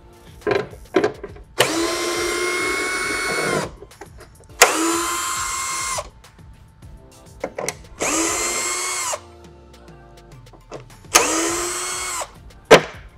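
Cordless drill-driver backing screws out of a plastic bumper mounting bracket: four bursts of a few seconds each, the motor whine rising as it spins up and then holding steady. Short clicks fall between the bursts, with a sharp knock near the end.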